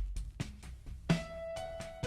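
Background music of plucked notes, a new note struck about a second in and left ringing.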